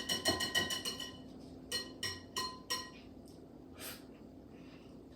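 A whisk clinking rapidly against a mixing bowl with a ringing tone for about a second, then four separate ringing taps about two seconds in.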